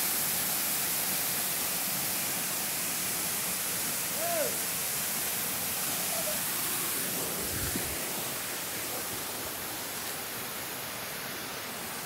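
Waterfall pouring close by: a steady, even rush of falling water. A short voice sounds briefly about four seconds in.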